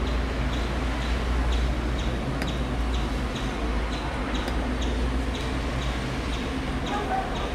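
Distant helicopter flying overhead, its rotor and engine giving a steady low drone. Short high ticks repeat about two or three times a second over it.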